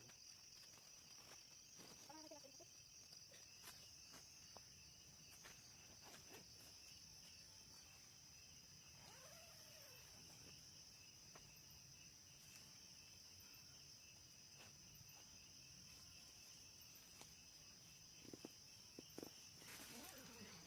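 Faint, steady chorus of night insects, a continuous high trilling, with a few faint soft calls and clicks over it.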